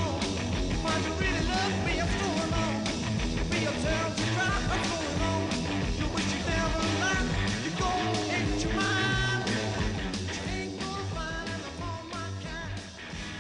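Rock song with a singing voice over a full band, fading out over the last few seconds.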